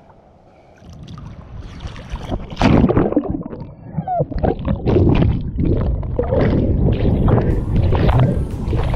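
Water churning and bubbling around a GoPro as it goes under with a diving swimmer: a muffled underwater rush with gurgling bubbles. It is quiet for the first second, then grows loud and turbulent from about two and a half seconds in.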